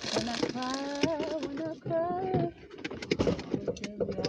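A voice singing a few held, wavering notes without clear words, followed by several short clicks and handling noises.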